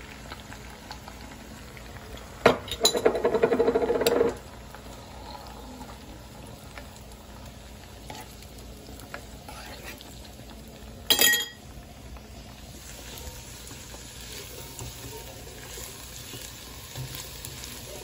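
Beaten eggs frying in oil in a nonstick pan with a low, steady sizzle. A metal spoon stirs and scrapes them, with a loud burst of quick strokes about two and a half seconds in and a single sharp, ringing clink of metal around eleven seconds in.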